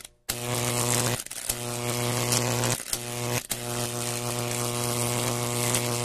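Electric buzzing and crackling sound effect: a steady low hum thick with overtones under a harsh hiss, broken by a few short gaps and cut off abruptly.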